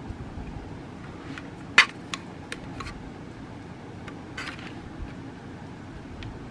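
Scattered light clicks and taps from handling cross-stitch work, the sharpest about two seconds in, over a steady low hum.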